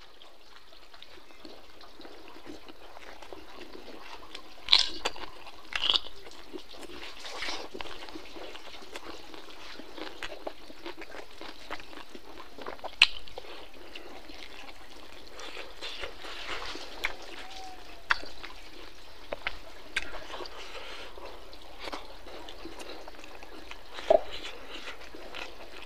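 Close-up eating sounds: a person chewing pork ribs and rice, with short wet mouth smacks and clicks every few seconds over a steady background hiss.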